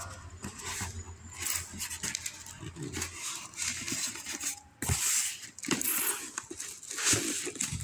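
Packaging being handled while a water pump is unboxed: irregular rustling, scraping and clicking, with two sharper knocks about five and seven seconds in.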